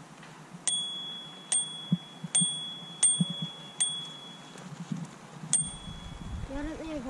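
Bicycle bell rung six times in quick, irregular succession, each a sharp ding that rings on briefly.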